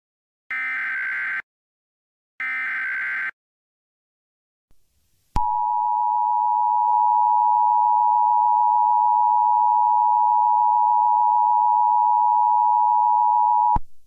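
Emergency Alert System alert: the last two of the three SAME header data bursts, each about a second long and a second apart. After a pause of about two seconds comes the steady two-tone EAS attention signal, which runs about eight seconds and cuts off just before the end.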